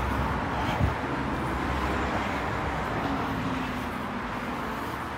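Steady urban street and traffic noise. A single thump comes about a second in, and after that the low rumble eases off.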